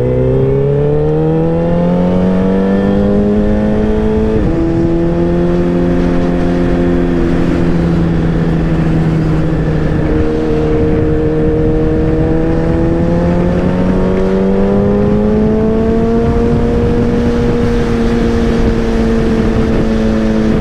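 Motorcycle engine pulling away, its note rising for about four seconds, then dropping at an upshift and running on at a steady pace, the pitch climbing slowly again before levelling off.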